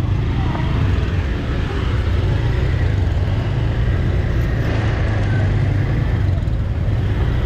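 Motor scooter engines running at walking pace close by, a steady low rumble, with faint voices of people in the crowd.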